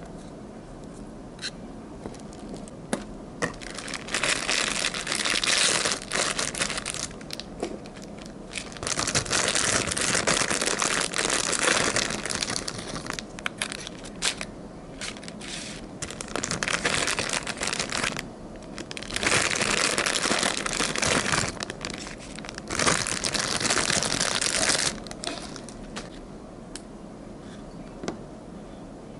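Harsh, scratchy rubbing noise in four bursts of a few seconds each, with small clicks and taps between them, from hand work on the parts of a motorcycle starter motor being rebuilt.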